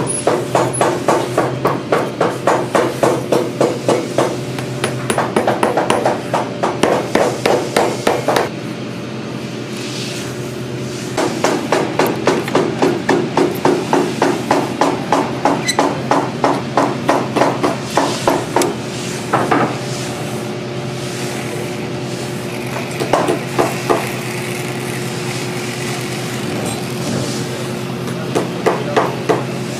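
Heavy-duty boot stitching machine sewing through the leather welt, a rapid clatter of about four stitches a second over a steady motor hum. It runs in bursts of several seconds, stopping and starting as the boot is turned, with two short runs near the end.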